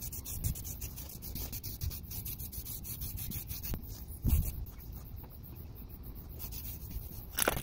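Aerosol can of flat black spray paint being shaken, its mixing ball rattling rapidly, about ten clicks a second. There is a dull knock about four seconds in and a brief hiss of spray near the end.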